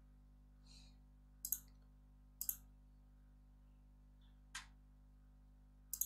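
A few short, sharp computer mouse clicks, spaced irregularly, over near silence.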